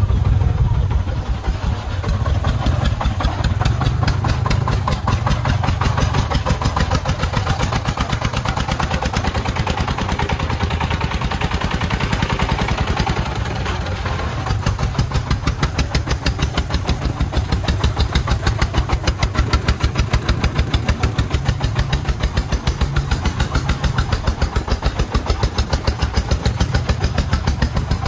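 Single-cylinder diesel engine of a công nông three-wheeled sand truck running under load, chugging with a rapid, even beat of firing strokes.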